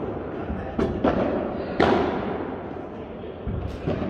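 Padel ball being struck and bouncing during a rally: sharp pops about a second apart, the loudest about two seconds in, each echoing in the large hall.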